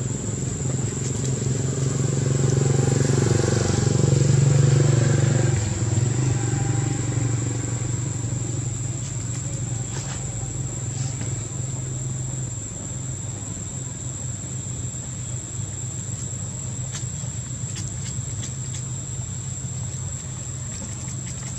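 Engine hum of a passing motor vehicle, growing louder to a peak about four to five seconds in, then slowly fading away, with a steady high-pitched whine underneath.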